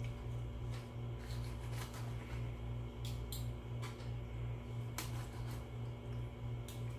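Scattered small clicks and smacks of someone eating, chewing and working a utensil, over a steady low hum that pulses about three times a second.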